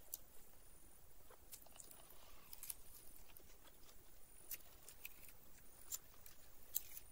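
Faint, scattered crackles and clicks of crispy fried fish being pulled apart by hand and eaten.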